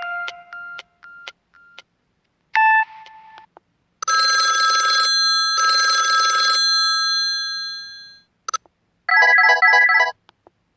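Samsung SGH-M620 mobile phone's speaker playing a run of short built-in ringtones one after another, with silent gaps between: the end of a melody, a short two-note chime, two long ringing bursts like a telephone bell with a fading tail, then a quick pair of electronic trills near the end.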